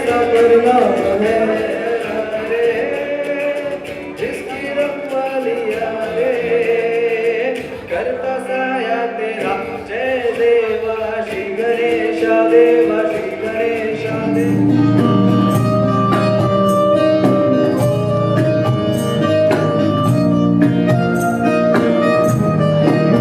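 Background music: a song with a singing voice over instrumental accompaniment. About fourteen seconds in, a steady beat with bass and regular percussion takes over.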